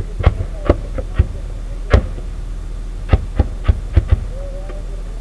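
Steady low hum of an armoured vehicle's running engine, with about nine sharp cracks at irregular intervals, the loudest about two seconds in and several close together a little after three seconds.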